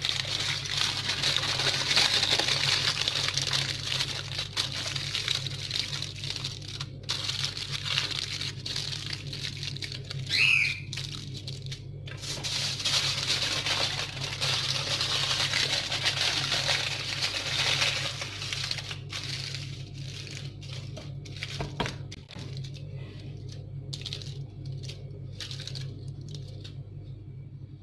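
Aluminium foil crinkling and rustling as it is folded and pressed around a tray of potatoes, thinning to scattered crackles near the end, over a steady low hum. A caged pet bird chirps once about ten seconds in.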